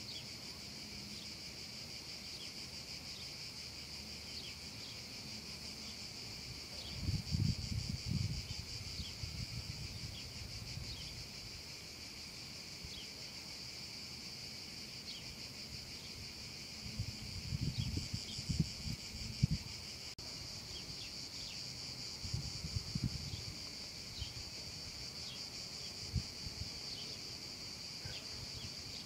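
Cicadas singing in a steady high-pitched chorus, with short faint chirps about once a second over it. Low rumbles against the microphone come and go a few times, the longest about seven seconds in and again around eighteen seconds in.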